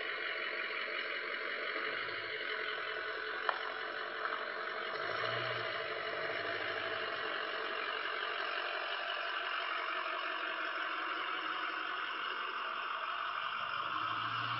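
A vehicle engine running nearby, heard as a low hum under the security camera microphone's steady hiss. The hum swells briefly about five seconds in and again near the end, and a single sharp click comes about three and a half seconds in.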